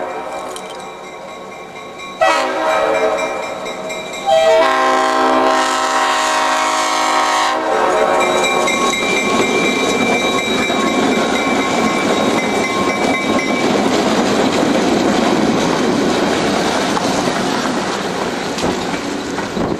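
Diesel freight locomotive sounding its multi-chime air horn in three long blasts, the last ending about seven and a half seconds in, followed by the locomotive and train passing close by, engine running and wheels on the rails.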